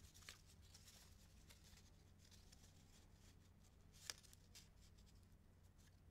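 Near silence over a low steady hum, with faint rustles and small ticks of construction-paper strips being handled, and one sharper tick about four seconds in.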